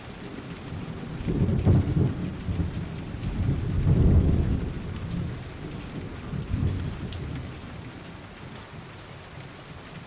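Heavy rain falling steadily, with low rolls of thunder that swell about a second and a half in and again around four seconds, then a fainter rumble before fading back to the rain.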